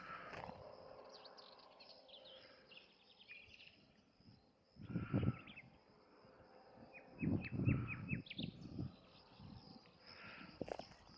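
Rural outdoor ambience: a steady high-pitched drone with scattered short bird chirps, including a quick run of chirps about seven seconds in. Two louder, fuller bursts of sound come about five and seven and a half seconds in.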